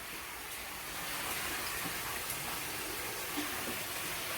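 Water pouring and splashing steadily into a koi pond as it is filled with fresh water.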